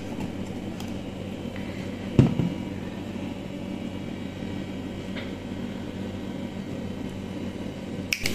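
Steady machine hum, with one sharp knock about two seconds in and a few light clicks from a wooden spice box with a glass lid being handled and opened.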